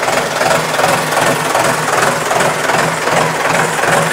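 Modified Hindustan tractor's diesel engine running steadily through its twin exhaust pipes, with an even, pulsing knock.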